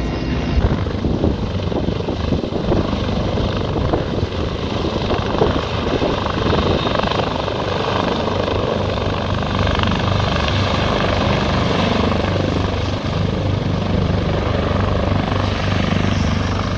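Mi-8AMT helicopter running: rapid rotor chop over the rush of its turbine engines, with a steady low hum that grows stronger in the second half.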